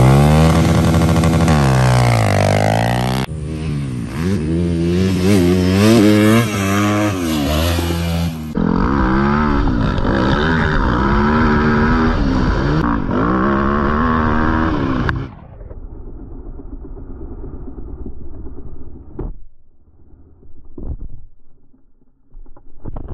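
Dirt bike engines revving, climbing and dropping in pitch through several cut-together clips, stopping abruptly about fifteen seconds in. After that come fainter, scattered noises.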